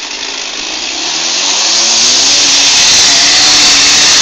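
Vehicle engine revving up, its pitch climbing over about a second and a half and then held at high revs. The sound grows steadily louder under a heavy rushing noise.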